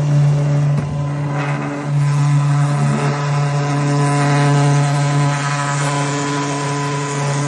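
Electric oil extraction pump running with a loud, steady hum, sucking engine oil out through a pipe down the dipstick tube.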